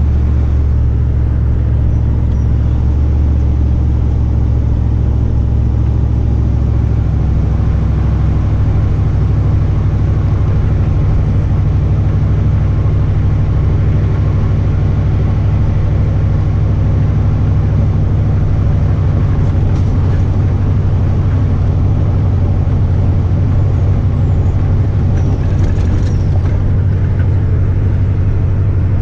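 Truck engine and road noise at steady cruising speed: a constant low engine drone that holds one pitch.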